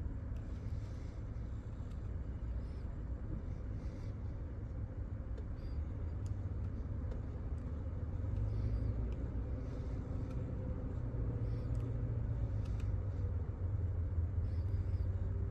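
A steady low rumble of running machinery, growing slightly louder about eight seconds in.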